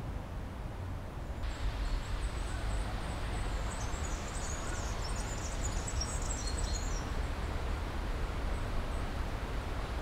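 Open-air ambience: a steady low rumble of wind, with small birds chirping high and quickly from about a second and a half in until about seven seconds in.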